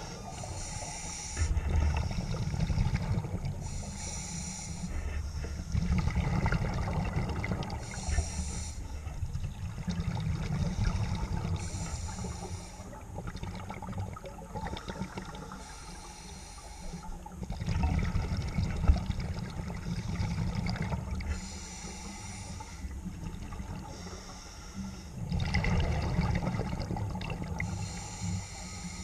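Scuba diver breathing through a regulator underwater, about seven breaths in a steady rhythm. Each breath is a short hiss on the inhale and then a longer low rumble of exhaled bubbles.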